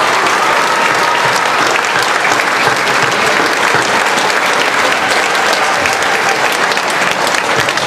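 A large audience applauding: many hands clapping steadily, with scattered voices in the crowd.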